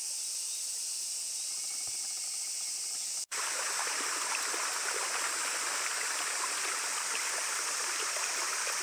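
Flowing stream water, a steady rushing hiss that begins abruptly about three seconds in, after a break in the sound. Before it there is only a faint, steady, high-pitched insect hiss.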